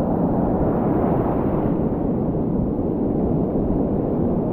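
Ocean surf washing through the shallows, with wind buffeting the microphone in a steady low rush.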